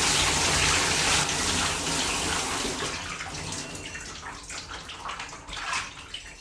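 Shower water running in a steady spray that thins out about halfway through, leaving scattered drips and splashes.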